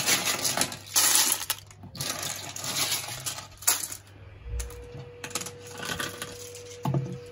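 Live snails' shells clattering and clicking against each other and the cooking pot as they are tipped in: a dense rattle for about two seconds, then scattered clicks. A dull thump comes about four and a half seconds in, followed by a faint steady tone.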